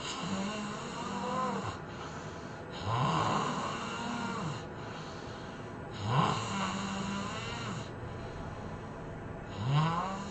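A person snoring in a steady rhythm, four snores about three seconds apart. Each snore is a buzzing drone that slides up in pitch as it starts, over a rush of breath.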